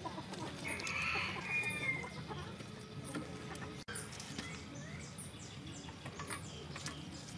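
Domestic hens clucking in the background, loudest about a second in.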